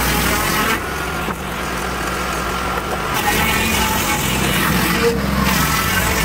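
Lucas Mill swing-blade portable sawmill running under load, its petrol engine driving the circular blade through a large log. The sound eases slightly about a second in and builds again around three seconds in.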